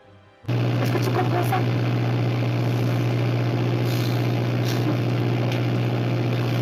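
A loud, steady engine drone with a constant low hum. It cuts in abruptly about half a second in and holds unchanged.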